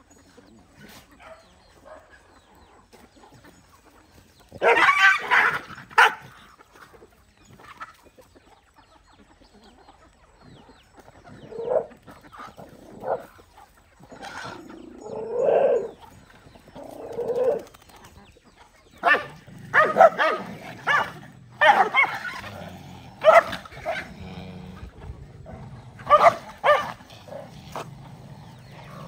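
A pack of dogs barking and snarling in short bursts, most of them in the second half, as they squabble over food at a shared feeder.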